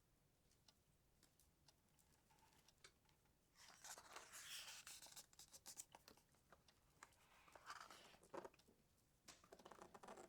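Paper book pages rustling as they are handled and turned: a longer rustle about four seconds in, then shorter ones around eight seconds and near the end.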